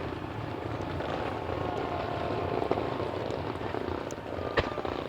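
Fireworks going off in a dense rapid run, a continuous crackling rush that stops abruptly, with a sharp bang near the end.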